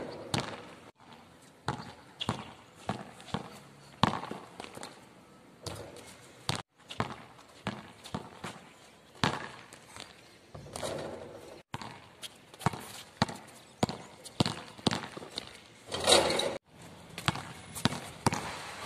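A basketball dribbled on a hard court: a string of separate bounce thuds mixed with sneaker steps, at an irregular pace, cut off completely for a moment several times.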